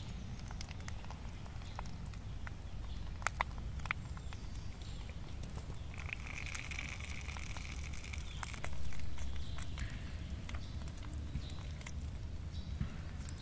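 Scattered light clicks and taps of a copper cup and metal spoon working over rice in a wok, over a steady low outdoor rumble, with a brief higher hiss near the middle.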